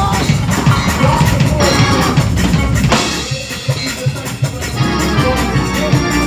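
Gospel praise-break music: fast organ chords over a driving drum kit, with a loud crash accent about three seconds in.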